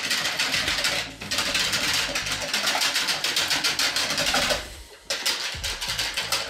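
Wire whisk beating a thin aquafaba batter in a plastic measuring jug: a rapid, even clatter of the wires striking and scraping the jug. There is a brief break about a second in and another near five seconds.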